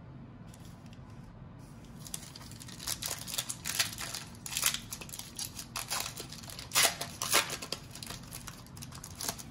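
Crinkling and rustling of a plastic card sleeve and trading cards being handled, a run of short scratchy rustles starting about two seconds in and loudest about seven seconds in.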